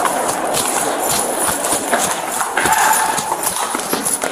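Running footsteps of a police officer in a chase, quick repeated footfalls on a hard subway floor and stairs, heard from a chest-worn body camera that rubs and jostles against the uniform.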